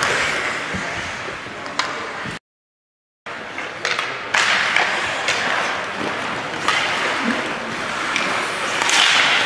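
Ice hockey game ambience in a rink: a steady wash of crowd and rink noise with a few sharp knocks of sticks or puck. All sound drops out for about a second around two and a half seconds in.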